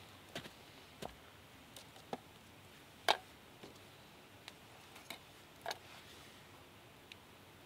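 A scattering of light, irregular clicks and knocks, about nine in all, the loudest a little after three seconds in.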